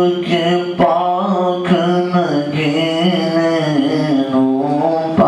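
A man singing solo into a handheld microphone in a slow, chant-like style, holding long notes that bend and waver in pitch, with short breaks between phrases.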